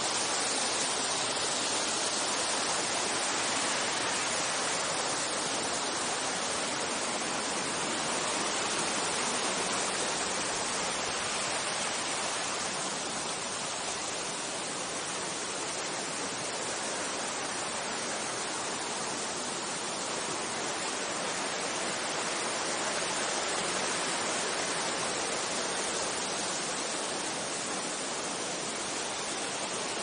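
Mountain stream rushing over boulders and small cascades into a pool, a steady even rush of water.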